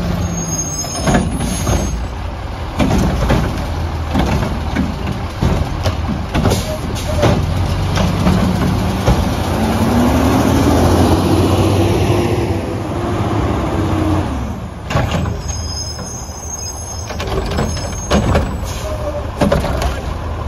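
Garbage truck running, its engine pitch rising about a third of the way in and falling back a few seconds later, with repeated sharp clanks and knocks throughout.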